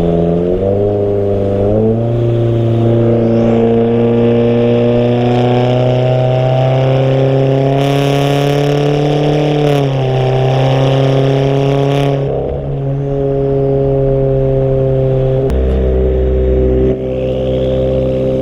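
Straight-piped exhaust of a 2017 Subaru Forester XT's turbocharged 2.0-litre flat-four, fitted with a catless downpipe and an Invidia N1 3-inch race exhaust, under way. The engine note climbs steadily for about ten seconds, drops, then holds steady, and a deeper low rumble comes in near the end.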